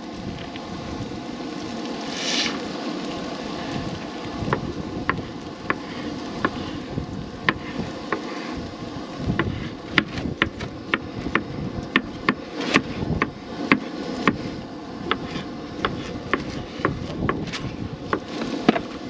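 Chef's knife chopping tomato and cucumber on a wooden cutting board: sharp taps at a slow, even pace that come quicker and louder after about ten seconds, over steady wind noise on the microphone. A short scrape about two seconds in.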